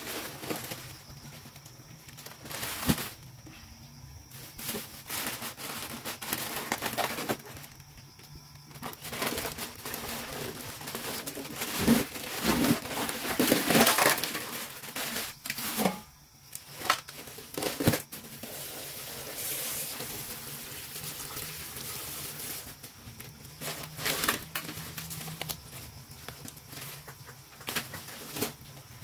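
Fish and shrimp being cleaned by hand: irregular scraping and handling noises with scattered sharp knocks, busiest about halfway through.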